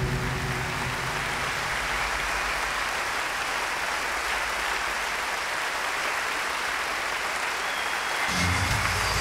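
Steady applause from an audience, an even clatter of clapping. Music comes back in low underneath near the end.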